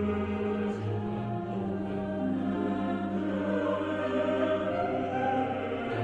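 Background music: choir-like voices holding long notes over a low steady drone.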